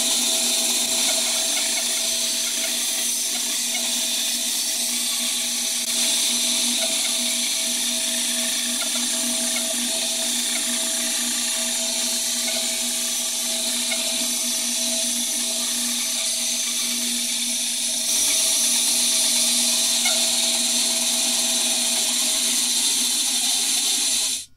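Small benchtop wood band saw running, its blade cutting a curve through a wooden board, a steady motor hum with the hiss of the cut. It gets a little louder for the last several seconds and cuts off suddenly near the end.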